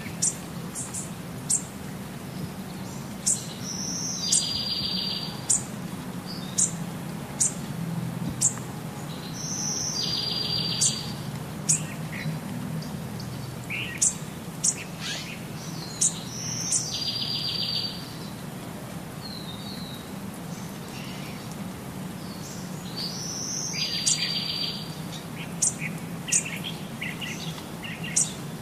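Birds chirping, with short sharp high calls scattered throughout. One bird repeats the same brief song phrase four times, about every six to seven seconds: a high note followed by a buzzy trill about a second long. A steady low hum runs underneath.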